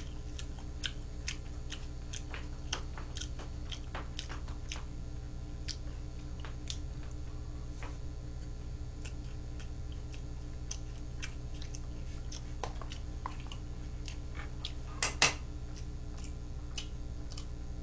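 Close-miked chewing of a man eating tteokbokki with chopsticks: soft, irregular mouth clicks and smacks over a steady low hum. Near the end there are two louder sharp knocks in quick succession.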